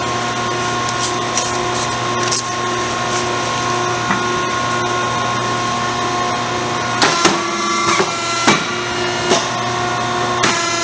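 Challenge Champion 305 MB paper cutter's hydraulic system running with a steady hum, with several sharp clicks and knocks in the second half.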